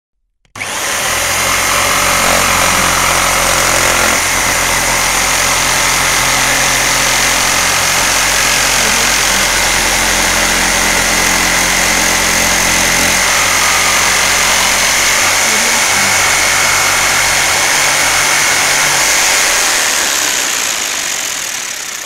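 Electric jigsaw running and sawing through a wooden bar, with a steady high whine over the buzz of the blade. It starts about half a second in and dies away near the end.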